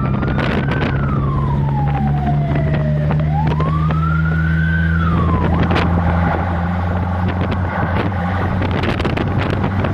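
Fire engine siren wailing, sweeping slowly up and down in pitch twice and cutting off about five and a half seconds in, over the steady hum of the truck's engine.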